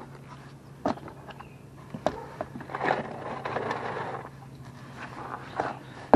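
Scattered clicks and knocks from hands working under a car, with a stretch of scraping about three seconds in and one sharp knock at the end, over a faint steady hum.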